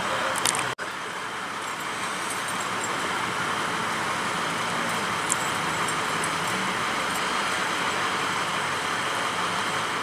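Steady hiss of road traffic and vehicle engines running outdoors, broken by a split-second dropout under a second in.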